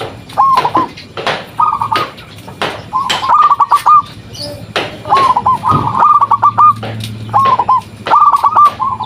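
Local zebra dove (perkutut) cooing in its full song, short phrases of quick rolling notes repeated about once a second, some overlapping as if more than one bird answers. Sharp short clicks sound between the phrases.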